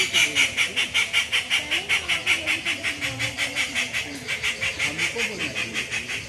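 A rapid, evenly pulsed animal call, about six or seven sharp pulses a second, which eases off around four seconds in and then picks up again, stopping just before the end.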